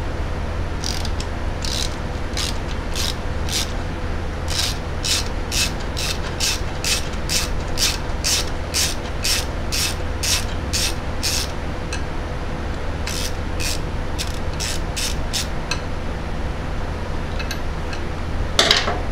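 Hand ratchet clicking in a steady rhythm, about two clicks a second, as it is worked on a fitting in a motorcycle transmission case. The clicking pauses about twelve seconds in, resumes for a few more clicks, and a brief louder clatter of tools comes near the end, all over a steady low hum.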